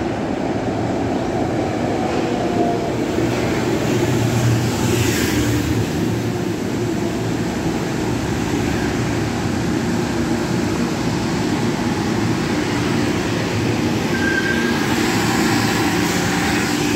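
A Metro-North M3 electric multiple-unit train pulling into the station and rolling past alongside the platform, with a steady rumble and hiss from wheels on rail. There is a brief high squeal about three-quarters of the way through.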